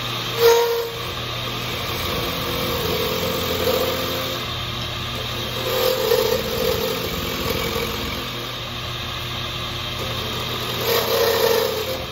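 Power tool motor running steadily, with a sharp louder moment about half a second in and louder swells around four, six and eleven seconds in.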